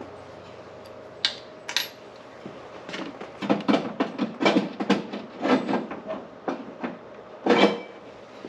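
Metal tools and parts being handled: irregular clinks and clatter, thickest through the middle, with a louder knock near the end.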